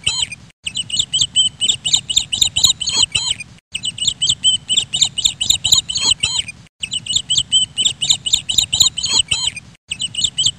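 Baby chicks peeping: rapid, high, shrill peeps, several a second, in a short recording that loops about every three seconds with a brief break between repeats.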